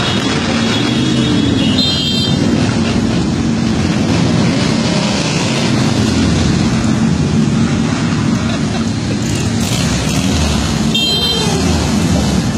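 Many motorcycle engines passing in a group ride, their revs rising and falling over a continuous loud running of engines. Two brief high horn toots sound about two seconds in and near the end.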